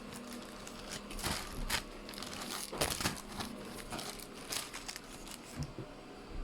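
Irregular crinkling and rustling, denser in the first half, with a faint steady hum that fades out about halfway through.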